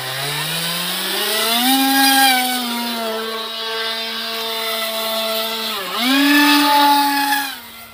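2212 2200 KV brushless electric motor spinning a 6-inch propeller on a foam RC plane, a loud whine that rises in pitch over the first two seconds as it spools up for the hand launch, then holds steady. Just before six seconds the pitch dips sharply and comes straight back up, and the sound drops in level near the end.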